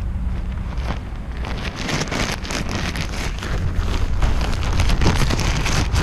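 Crinkling and rustling of an inflatable kite's ripstop canopy being handled, with wind rumbling on the microphone; the crackling gets denser about two seconds in.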